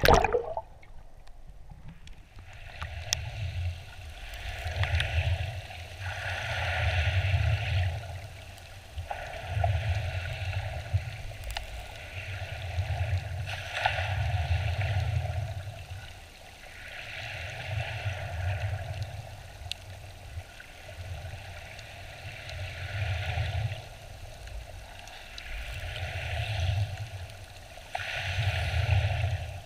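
Shallow sea water heard from under the surface: a muffled wash of waves that swells and fades about every three to four seconds.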